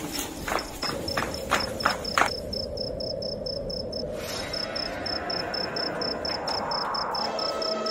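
Crickets chirping in a steady high pulse, about four chirps a second. A few sharp taps come in the first two seconds.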